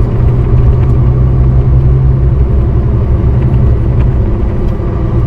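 Truck engine droning steadily with road noise, heard from inside the cab while driving.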